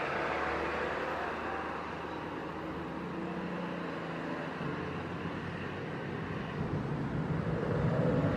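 Jet engine noise from an Airbus A330-300 climbing out after takeoff, heard from the ground as a steady rushing rumble that grows louder about seven seconds in.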